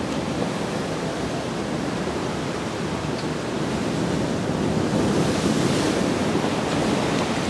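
Ocean surf washing against a rocky shore: a steady rushing noise that swells a little past the middle.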